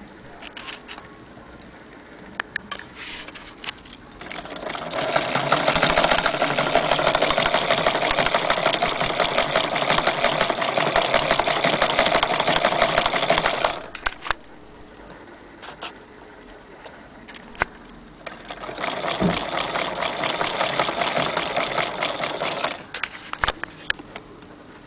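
Antique Victorian hand-crank sewing machine stitching through denim: a fast, even mechanical clatter in two runs, one of about nine seconds and, after a pause, one of about four seconds. Scattered single clicks from handling the machine come before and between the runs.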